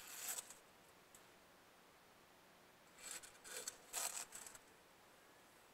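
Short bursts of scraping or rubbing noise over a faint steady hiss: one right at the start, then a longer cluster about three to four and a half seconds in.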